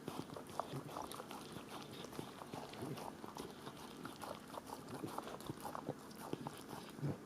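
A dog moving about and working at objects with its mouth: a faint, irregular run of small clicks, taps and chewing sounds.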